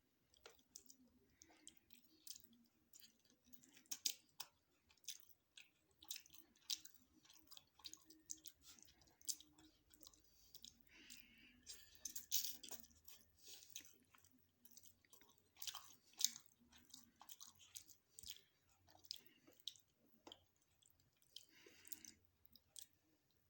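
A person chewing food close to the microphone: a steady run of irregular wet mouth clicks and smacks.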